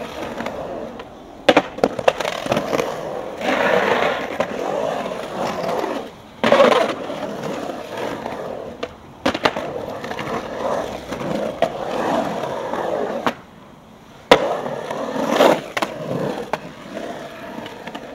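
Skateboard wheels rolling and carving across a concrete bowl: a continuous gritty rumble that swells and fades as the board rides up and down the walls. It is broken by sharp clacks and knocks of the board several times; the loudest comes about fourteen seconds in.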